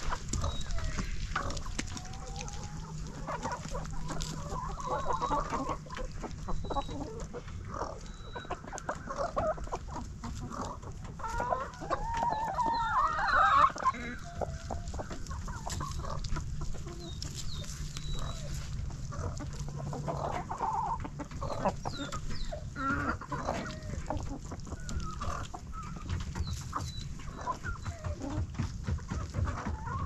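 A flock of hens clucking and calling steadily, with a louder run of calls about halfway through.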